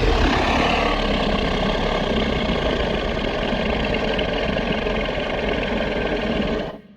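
Monster sound effect for a fictional dinosaur: one long, steady, low rumble with a strong low end, lasting about seven seconds and fading out near the end.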